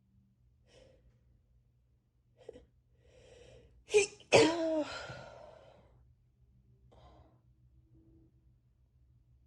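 A person with a head cold sneezing: a few catching breaths build up, then a sneeze in two sharp bursts about four seconds in, trailing off in the voice. A faint breath follows a few seconds later.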